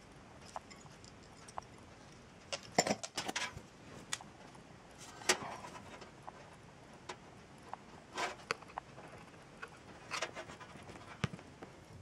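Handling noise from hands working over a computer: scattered light clicks and short bursts of clatter and rustle, a few of them louder.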